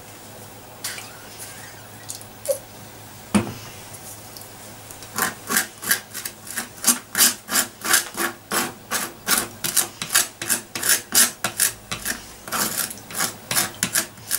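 Table knife scraping mayonnaise across dry toast, a rasping sound. It is faint at first, then becomes a steady run of short back-and-forth strokes, about two or three a second, from about five seconds in. There is a single sharp knock a little over three seconds in.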